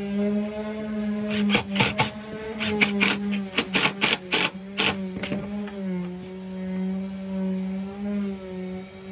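Cordless driver sinking a hidden-fastener screw into a hard IPE deck board, in about fifteen short, sharp bursts over three or four seconds. Background music holds a steady tone throughout.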